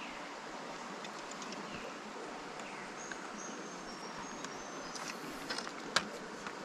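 Steady rush of a shallow creek's flowing water, with a few faint high chirps from insects or birds in the middle. Several light clicks come about five seconds in, then one sharp snap, the loudest sound, as the rod is swept up.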